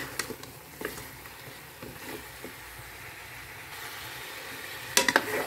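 Chicken pieces frying in a pot, a steady sizzle as they brown to a golden colour in their own fat and onion rather than in oil. A few sharp knocks of a utensil against the pot near the end.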